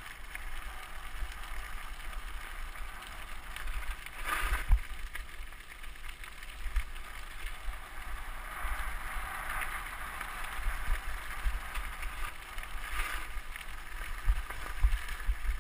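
Mountain bike rolling fast down a loose gravel track: tyres crunching and rattling over the stones, with wind buffeting the microphone. It grows louder in spells about four seconds in and again near thirteen seconds.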